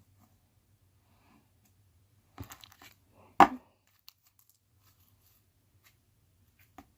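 Handling of a plastic slime container as slime is pressed into it: a short crinkling rustle about two and a half seconds in, then one loud sharp crackle a second later, and a faint click near the end.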